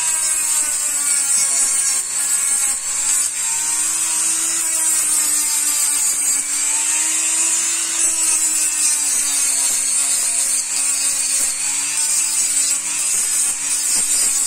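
Handheld rotary tool running steadily with its small bit pressed against a coconut shell, a high motor whine over a gritty hiss. The whine's pitch dips and rises slightly as the bit bears on the shell and eases off.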